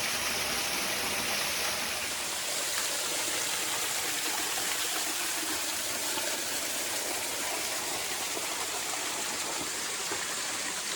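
Steady hiss of water from a thin, wispy waterfall cascading into a rock pool.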